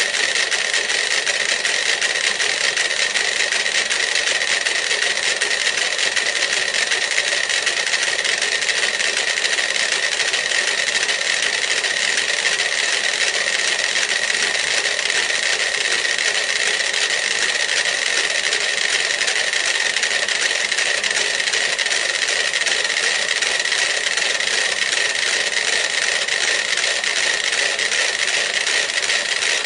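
Many mechanical metronomes ticking at once, their clicks running together into a dense, steady clatter.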